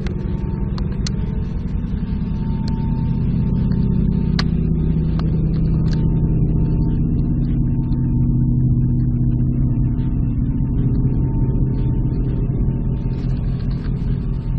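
A loud, low, sustained drone made of several steady pitches layered together, droning on like an organ or horn chord with slight shifts in pitch: one of the unexplained 'strange sounds' reported heard from the sky. A few faint clicks sound in the first half.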